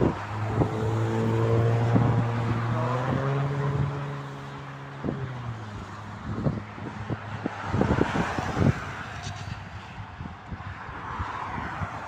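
Passing motor vehicle's engine droning with a steady low pitch for about five seconds, stepping up slightly about three seconds in and falling away near five seconds. Wind buffets the microphone, with road traffic noise underneath.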